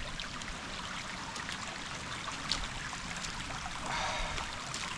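A small woodland stream running steadily across the path, with a brief louder rush of water about four seconds in.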